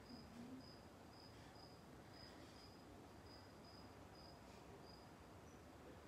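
Near silence, with a faint cricket chirping steadily at about two short chirps a second.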